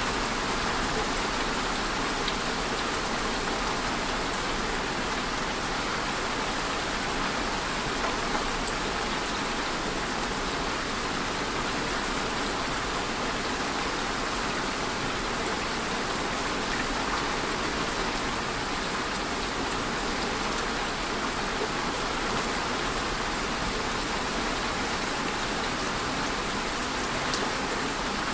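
Steady rain falling and pattering on a surface, an even hiss with scattered drop ticks and no thunder.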